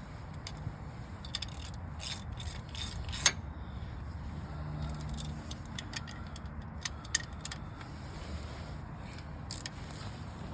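Irregular metallic clicks, clinks and light rattles of hand tools and brake hardware being worked while the brake caliper is bolted back on. One sharp clink about three seconds in is the loudest.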